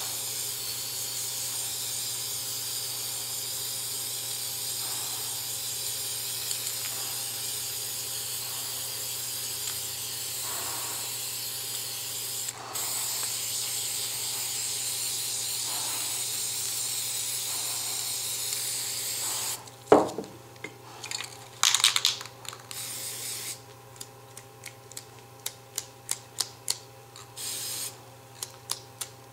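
Aerosol spray paint can hissing in a long, steady spray for about twenty seconds, with one brief break. Then a single knock, a short spray, and from about four seconds later a run of sharp clicks, two or three a second, typical of the mixing ball rattling as a spray can is shaken.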